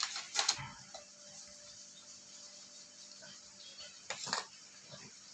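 Two short clinks of a spoon against glass and bowl, one about half a second in and one about four seconds in, while whipped cream is spooned into glasses, over a faint steady hiss.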